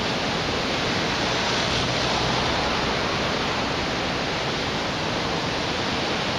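Loud, steady rush of a river in flash flood, fast-moving floodwater.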